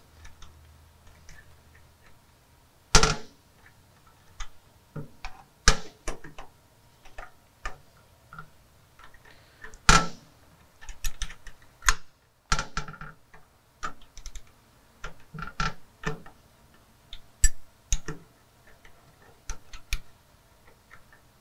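Small steel wrench clicking and tapping on the grid heater bus bar nut and the metal intake plate as the nut is worked loose in short turns, an irregular series of sharp clicks with a few louder knocks. The nut turns stiffly on a hard spot in the threads.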